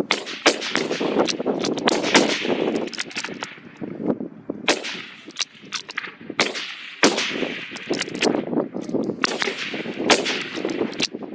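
Rifle shots cracking in quick, irregular succession, more than one shot a second at times, each trailing an echo: several rifles firing along a range's firing line.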